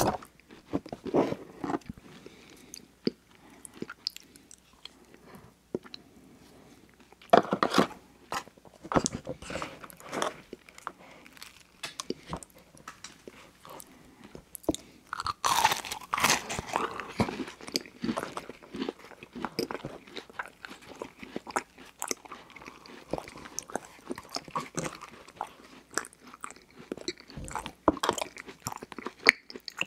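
Close-miked eating: irregular crunchy bites and chewing of a pastry pie topped with Oreo McFlurry ice cream. About halfway through comes a longer scraping stretch as the pie is scooped through the McFlurry cup.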